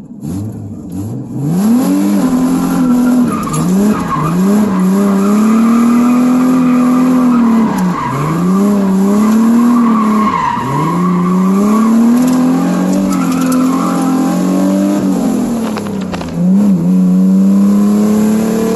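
Nissan 300ZX (Z31) engine pulling hard, heard from inside the cabin: the pitch climbs, holds high, then drops sharply and climbs again as it runs through gear changes, about five times.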